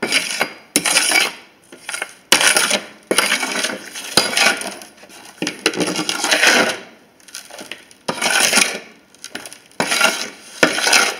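Metal hand scoop scraping and scooping loose potting soil across a tabletop, in a series of short gritty strokes, several starting with a sharp knock as the blade hits the surface.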